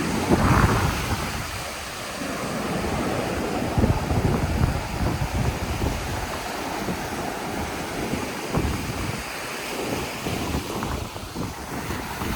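Sea wind buffeting the microphone in uneven gusts over the wash of surf breaking on the beach.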